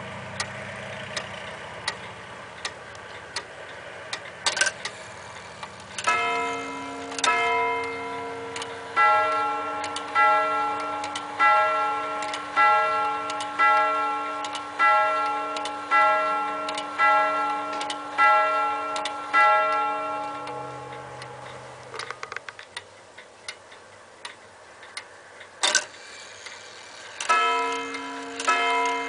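Gustav Becker three-weight grand sonnerie Vienna regulator ticking, then striking on its gong rods. About six seconds in it gives two strikes on the higher quarter rod, then about ten strikes on the deeper hour rod, about one a second, each ringing on. Ticking resumes, a sharp click sounds, and near the end the clock starts striking again.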